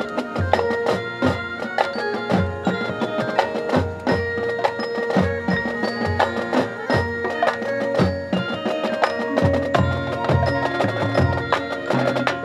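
Marching band playing: flutes, clarinets and saxophones holding notes over mallet percussion and low drum strokes that fall at a steady beat.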